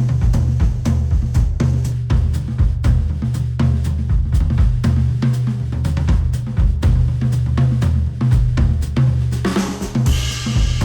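Instrumental track with a steady drum kit beat of snare, kick and hi-hat over a heavy bass line, played back through a Sennheiser headphone and picked up by microphones at the earcup. A cymbal wash comes in near the end.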